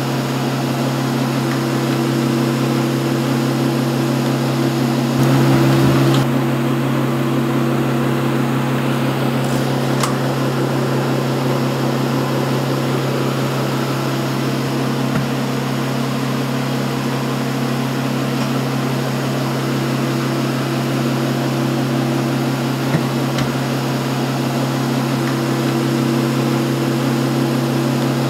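A steady, unchanging low machine hum, like a motor or household appliance running, with a few faint clicks.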